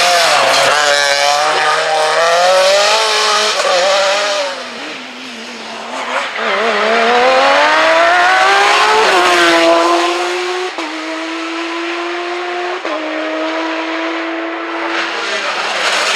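Rally cars passing at full throttle one after another, engines revving high. One engine rises steadily in pitch, then steps through three upshifts near the end.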